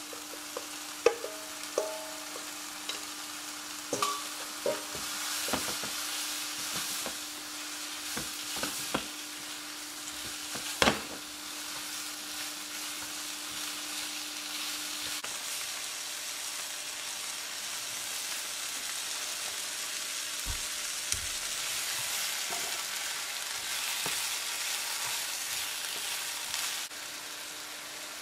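Sliced mushrooms and green pepper strips stir-frying in a nonstick frying pan, sizzling steadily as long chopsticks stir them. In the first half there are several sharp taps of chopsticks against the steel bowl and pan, the loudest about 11 seconds in, and a steady low hum that stops about halfway through.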